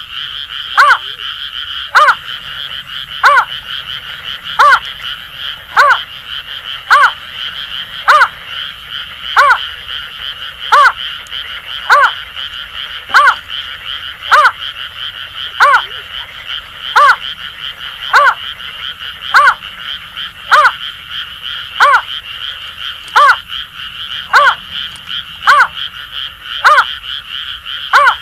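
Greater painted-snipe calling a short hollow note over and over, evenly about once a second, over a steady chorus of Asian grass frogs calling.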